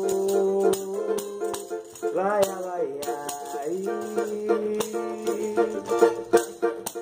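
Music: an instrumental stretch of a song, with a shaker-type rattle keeping a steady beat under held melody notes. The notes slide up and back down about a third of the way in.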